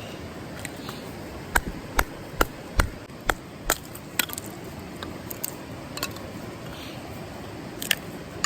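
A series of sharp knocks, about two or three a second for a couple of seconds, then fainter scattered clicks and one last knock near the end, over a steady rushing background.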